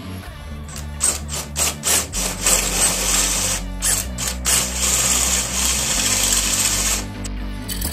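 Handheld drill with a step drill bit cutting into a metal tube held in a bench vise: a few short bursts about a second in, then steady cutting that stops about seven seconds in. Background music plays underneath.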